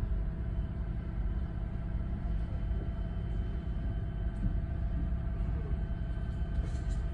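Steady low drone of a lake sightseeing boat's engine, heard on board while the boat is under way, with a few faint steady tones over the rumble.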